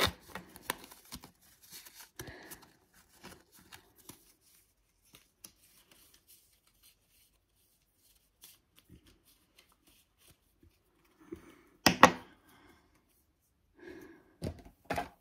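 Pokémon trading cards handled by hand, with light clicks and slides of card stock, mostly in the first few seconds. A louder bump comes about twelve seconds in.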